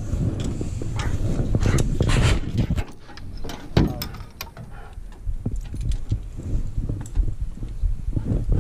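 Rustling and bumping of a dog being handled on a leash, then scattered sharp clicks and knocks as it is loaded into an aluminum dog box on a pickup, from the box door, latch and leash clip.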